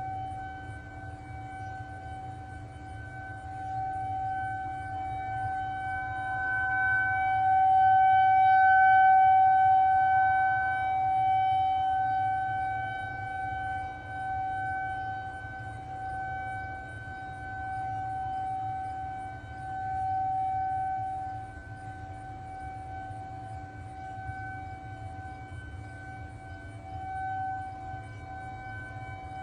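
Federal Signal 2001-SRNB outdoor warning siren sounding a steady alert tone. It holds one pitch with no rise or fall, while the loudness swells and fades several times as the rotating head sweeps toward and away from the listener. It is loudest about nine seconds in.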